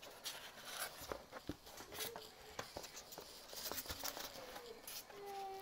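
Cardboard box and polystyrene packaging of a model building being handled and opened: scattered clicks and rustles, with a few short squeaks, the longest near the end.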